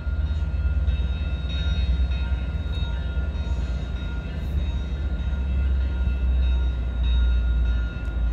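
Commuter train locomotive running as it rolls slowly through a rail yard: a steady low rumble with a constant high-pitched whine over it.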